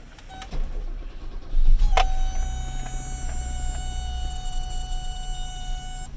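1984 BMW 633 CSi's 3.2-litre straight-six being cold-started: a few clicks, a short crank, then the engine catches about two seconds in and settles into a steady idle. A steady high whine runs over the idle and cuts off abruptly near the end.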